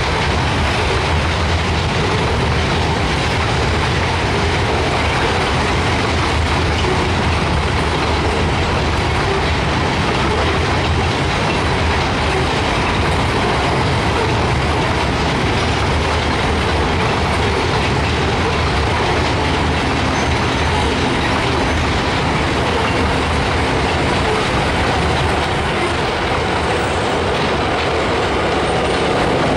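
Freight train rolling past: a steady rumble and rattle of wheels on the rails.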